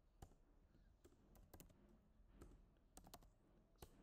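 Faint computer keyboard keystrokes, typing in short irregular clicks.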